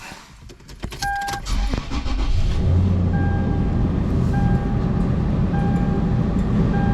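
A car's engine starting and running steadily, with a dashboard warning chime beeping evenly about once every second and a bit. A few clicks come first, and a single beep sounds about a second in.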